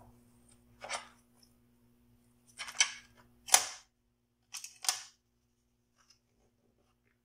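Crisp lettuce leaf and burger bun being handled on a plate: a handful of short crinkling rustles, the loudest about three and a half seconds in.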